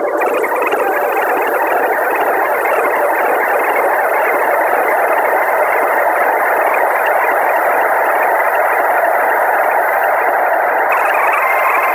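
Dark ambient electronic soundscape: a loud, steady wash of static-like noise with no beat or clear melody. A higher hiss joins it at the start and shifts slightly near the end.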